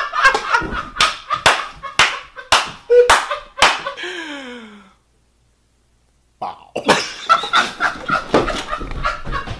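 A person laughing hard, with sharp smacks about twice a second. The laugh trails off in a falling wheeze, the sound cuts out completely for over a second, then laughing and smacking start up again.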